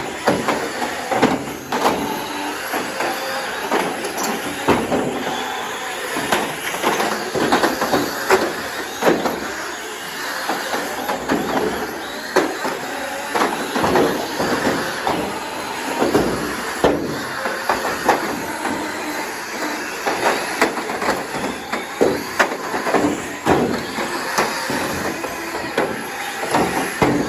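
Radio-controlled cars in a derby, running and crashing into each other: steady motor and wheel noise with frequent knocks and clatters from the collisions.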